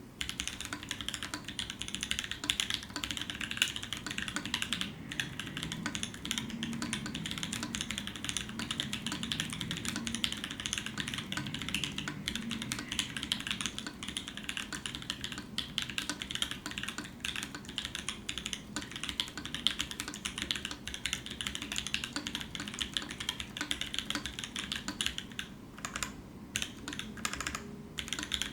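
Praxis mechanical keyboard with Kiwi tactile switches (lubed with Tribosys 3203, bronze films), Zeal stabilisers and a black aluminium plate, typed on quickly and continuously with dense clacking keystrokes. Near the end the typing thins out to a few separate strikes.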